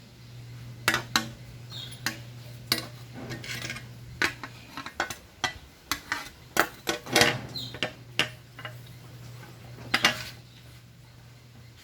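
Metal tools and engine parts clinking and clanking irregularly as they are handled during engine assembly, over a steady low hum.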